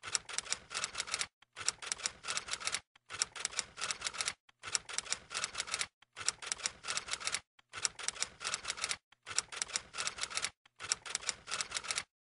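Typewriter sound effect: rapid key clacking in eight runs of about a second and a half each, broken by brief pauses, as text is typed out on screen.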